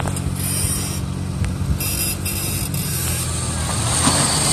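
A vehicle engine idling steadily, getting a little louder near the end.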